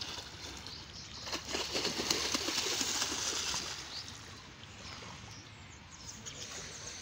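Swimmer splashing through pool water with kicking legs and stroking arms. The splashing swells about a second in, is loudest for the next couple of seconds, then dies down.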